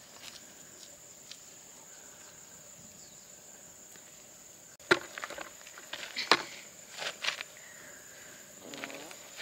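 Steady high insect buzz, like crickets. About halfway in a sudden sharp knock comes, followed by several clicks and rustles.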